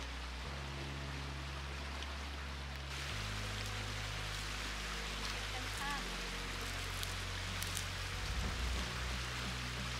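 Soft background music of long held low notes that shift every few seconds, over the steady rush of a shallow stream running over stones. A few faint clicks and rustles come in the second half.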